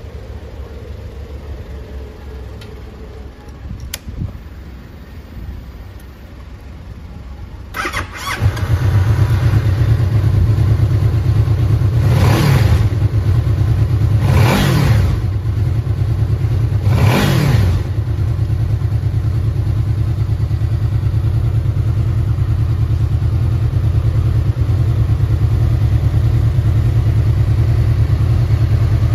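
Honda VFR800F's V4 engine started about eight seconds in: a short burst of cranking, then it catches and idles. It is revved three times, each rev rising and falling back, then it idles steadily.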